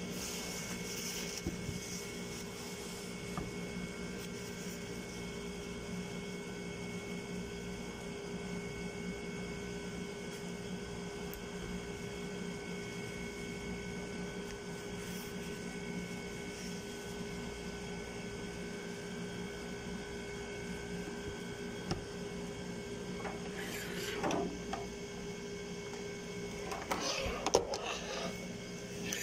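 Steady electrical hum with several fixed tones from a plugged-in kitchen appliance. Near the end comes brief rustling and light knocking as items are handled.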